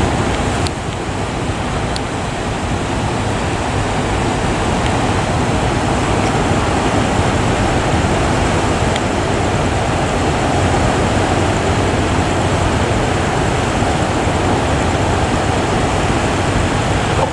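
Heavy surf: the steady, loud wash of big waves breaking, with no distinct tones or knocks.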